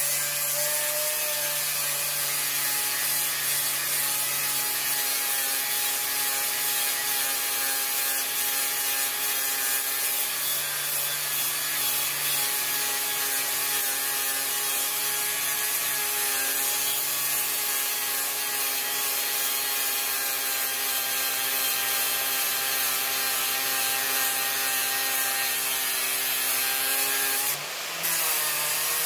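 Corded angle grinder grinding down weld beads on a wood stove's metal body: a steady whine with the disc's grinding hiss as it smooths the welds. It breaks off briefly near the end.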